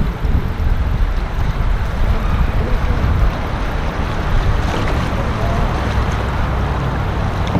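Wind buffeting the microphone, a loud low rumble that comes in suddenly at the start, over the sound of moving creek water.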